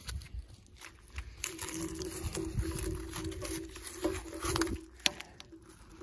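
Handling noise from a magnet-fishing haul: scraping, clicking and rustling as gloved hands work a rusty find and the rope against a concrete bridge railing, over a low rumble. A steady hum runs through the middle few seconds.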